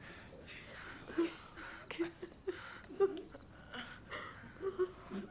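A person sobbing in short, irregular gasps and whimpers, with breathy intakes between them.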